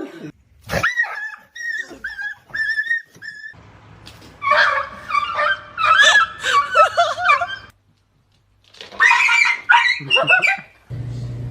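A dog whining and yelping in short, high-pitched cries, in several separate runs.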